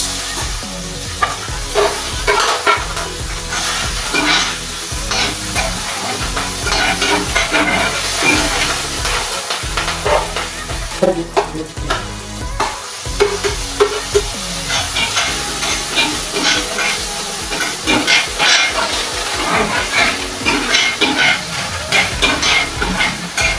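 A metal spoon stirring and scraping vegetables frying in a stainless steel pan, with sizzling under repeated metallic scrapes and clinks.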